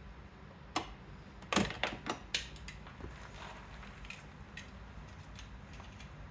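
Sharp clicks and knocks of hand tools against the plastic door trim while the interior door panel is being taken apart: a cluster of knocks about one to two and a half seconds in, then scattered light ticks.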